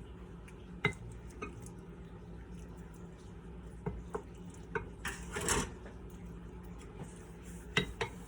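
A wooden spoon scraping and knocking against a glass bowl while scooping out the last of the macaroni and cheese. Scattered light knocks, a longer scrape about five seconds in, and two sharp knocks near the end.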